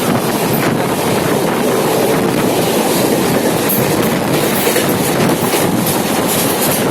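Vikramshila Express running past at full speed: a loud, steady rush of train noise with wheels clattering on the rails.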